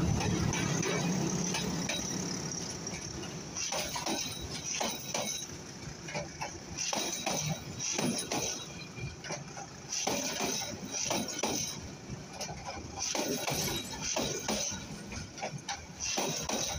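Passenger train coaches rolling past at close range: the diesel locomotive's low drone fades over the first couple of seconds, then irregular metallic clanking and clattering from the wheels and rattling coaches, coming in clusters every few seconds.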